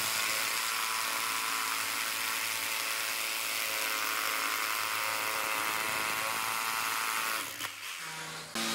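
A small electric power tool's motor running steadily with a whine. It winds down about seven and a half seconds in, with a few short clicks.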